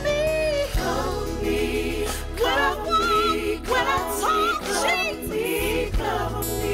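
Gospel worship song: voices singing drawn-out notes with vibrato over a sustained keyboard and bass accompaniment.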